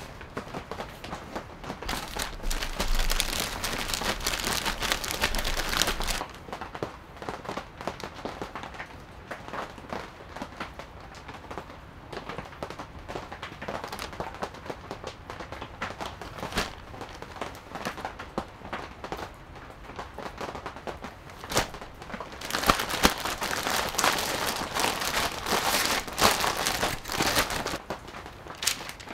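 Plastic zip-top bag crinkling and rustling as chicken pieces are shaken in seasoned flour, in two spells of a few seconds each, one near the start and one near the end, with scattered light ticks and taps between.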